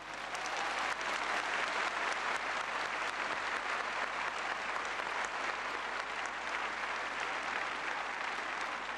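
A very large crowd applauding, the clapping swelling in over the first second and then holding steady.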